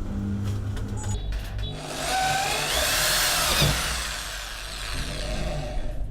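Bosch GSB 13 RE corded impact drill running with its motor humming steadily. From about two seconds in, for around three seconds, it gets louder and harsher with a whine that rises and falls as the bit cuts through the workpiece, then it returns to the plain running hum.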